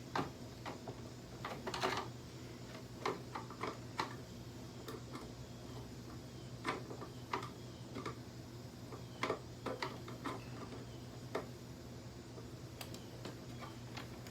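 Irregular clicks and light knocks of a Hoover upright vacuum cleaner's plastic parts being handled, over a steady low hum.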